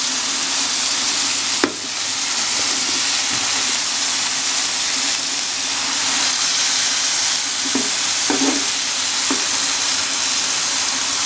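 Hamburger patties and bun halves sizzling steadily in hot oil, with a sharp tap on the pan about a second and a half in.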